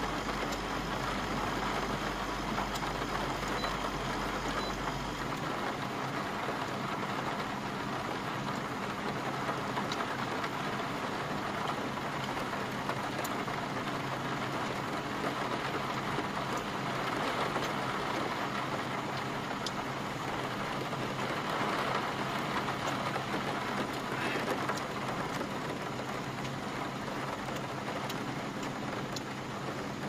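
Heavy rain falling on the roof and body of a small camper van, an even, steady hiss, with a low steady hum beneath it.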